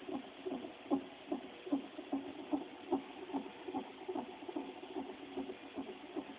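Unborn baby's heartbeat picked up by a Philips fetal monitor's Doppler ultrasound and played through its speaker: quick, even pulses about two and a half a second, around 150 beats a minute.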